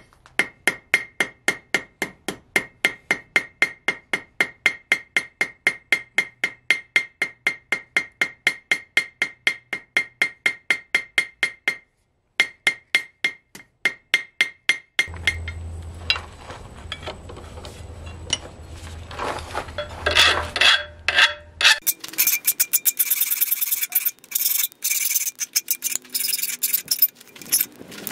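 Hand hammer striking hot steel on the horn of an anvil in a fast, even rhythm of about three blows a second, each blow with a bright anvil ring; after a short pause the blows resume, then stop about fifteen seconds in. A low hum with scraping follows, and in the last few seconds rough, rapid filing strokes on the piece clamped in a vise.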